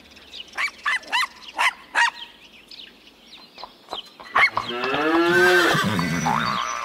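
Cartoon farm-animal calls: a run of short, high chirping calls in the first two seconds, then from about four and a half seconds a longer, wavering, cow-like lowing call with other animal cries over it.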